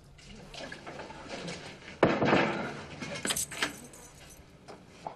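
A toilet cubicle door bangs shut about two seconds in, followed by sharp metallic clicks and rattles as a bolt is worked on the door.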